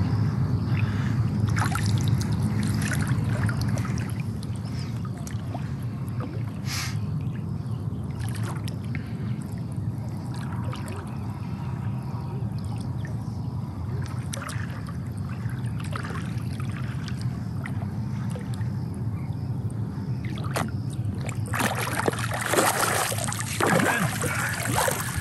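Small splashes and trickling water as a hooked carp is played in close, over a steady low rumble. About 21 seconds in the splashing grows louder and busier as the landing net goes into the water under the fish.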